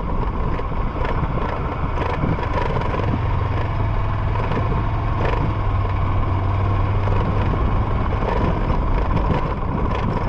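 Honda CG 150 Fan motorcycle's single-cylinder engine running steadily under way on a rough dirt road, mixed with wind and road noise and a few sharp knocks from bumps.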